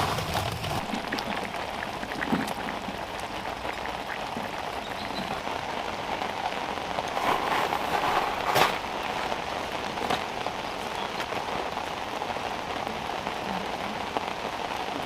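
Steady rain falling on a surface, a dense pattering hiss, with one sharper knock about eight and a half seconds in.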